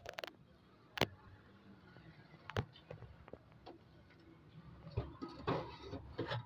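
Metal rod knocking and clunking inside a Honda CD 70's fuel tank as it is levered through the filler opening to push out a dent: scattered sharp knocks, the loudest about a second in, and a quick cluster of them near the end.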